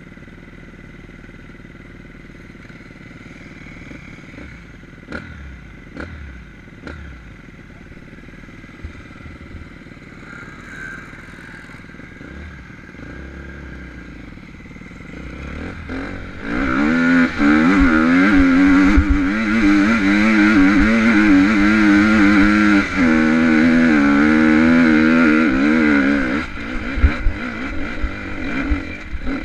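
Dirt bike engine running quietly at first, with a few sharp clicks, then held wide open at high revs for about ten seconds as the bike climbs a steep dirt hill, its pitch wavering with traction. Near the end the throttle comes off and the engine runs unevenly in short bursts.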